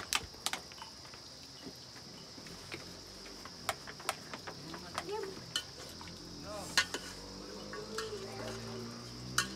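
Steady high-pitched insect drone with scattered sharp clicks and light clatter of cooking at a wood fire, including a metal spoon stirring in a steel pot near the end.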